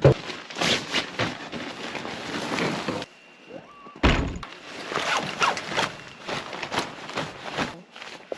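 Two heavy thunks, one at the start and one about four seconds in, each followed by a few seconds of quick crunching and rustling.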